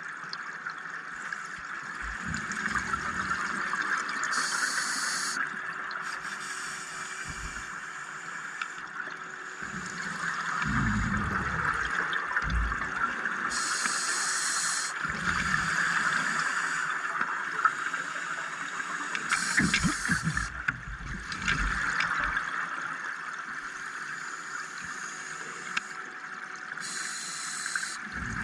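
A scuba diver breathing underwater: short hissing inhalations through the regulator and low gurgling bursts of exhaled bubbles every several seconds, over a steady background hiss.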